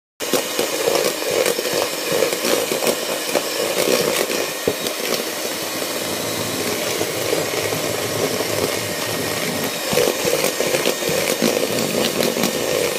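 Electric hand mixer running steadily, its beaters whipping egg whites in a plastic bowl while sugar is added gradually.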